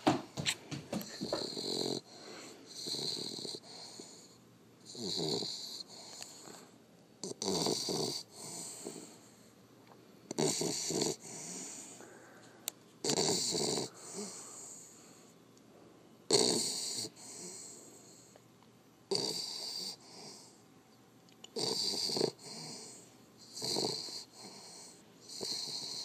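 A sleeping bulldog snoring: a loud rasping snore about every two to three seconds, each with a breathy hiss over it.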